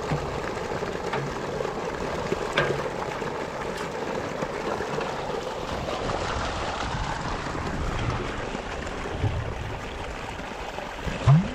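Irrigation water rushing steadily out of siphon tubes into sandy, washed-out furrows, a continuous rush like a small waterfall. A short, loud sound rising in pitch comes near the end.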